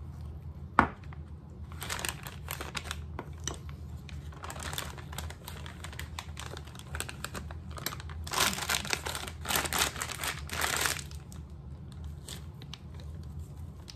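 Clear plastic piping bag crinkling in repeated bursts as it is handled, opened and filled with red icing, the crinkling loudest for a few seconds past the middle. A single sharp click about a second in, over a low steady hum.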